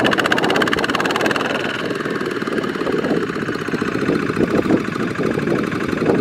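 Kubota ZT155 two-wheel walking tractor's single-cylinder diesel engine running steadily under load, with a rapid even knock of firing strokes, as it hauls a loaded trailer through deep mud.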